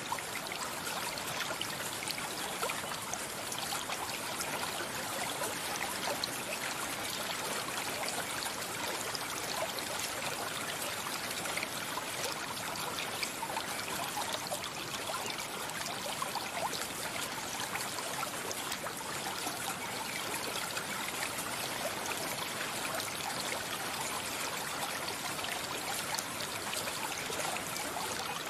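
A stream of running water flowing steadily, an unbroken trickling and rushing.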